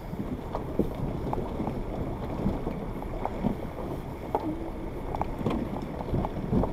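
Suzuki Jimny rolling slowly over a dry, stony riverbed: a low rumble with irregular knocks and crunches of stones under the tyres.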